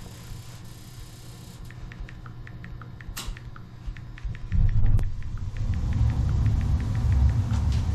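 Gas steam boiler starting up: the spark igniter of its intermittent-pilot ignition ticks about three times a second. About four seconds in, the burner lights and a steady low rumble of burning gas takes over, with a couple of sharp clicks.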